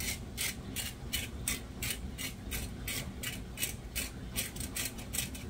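Hand-twisted salt grinder being cranked, a steady run of ratcheting grinding clicks about three a second that quicken near the end; the grinder is nearly empty.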